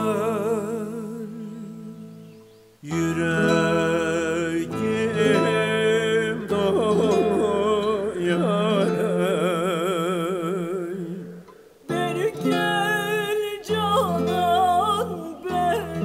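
Turkish folk song (türkü) performance: singers holding long, wavering notes with vibrato over plucked strings and a steady bass. The music fades out about two and a half seconds in and comes straight back, and dips briefly again near twelve seconds.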